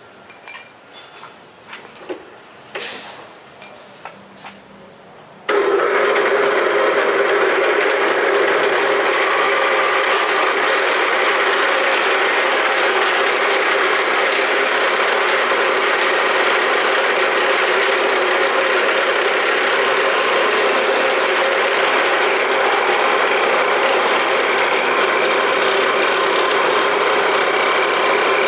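A few sharp knocks, then about five seconds in a bench drill press starts and runs steadily, its spinning cutter boring a hole in a wooden board clamped in a vice.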